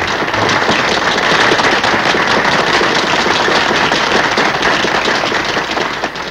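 Audience applauding at the end of a song: dense, steady clapping that eases off slightly near the end.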